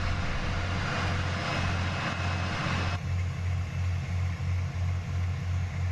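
Heavy military truck's diesel engine running: a deep, steady hum that takes on a regular pulse of about three beats a second about halfway through, when the hiss above it drops away.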